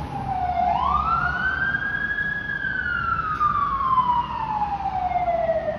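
Singapore Civil Defence Force emergency vehicle's wail siren. Its pitch climbs for about a second and a half, holds briefly, then slides slowly back down.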